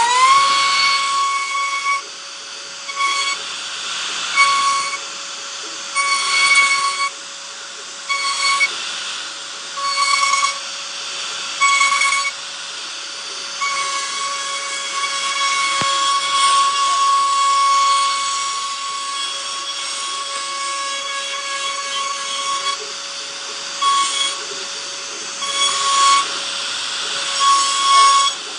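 CNC router spindle running at steady speed with a high, steady whine. Louder stretches of cutting noise come and go every second or two as the bit works through the material.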